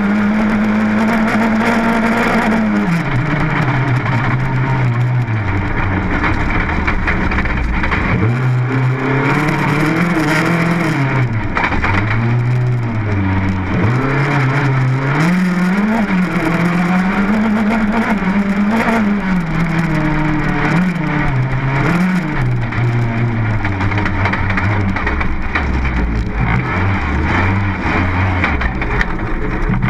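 Rally car engine heard from inside the cabin on a gravel stage, held at high revs, then dropping about three seconds in. For the rest of the stretch the revs climb and fall again and again through gear changes and lifts. Tyre and gravel noise runs underneath throughout.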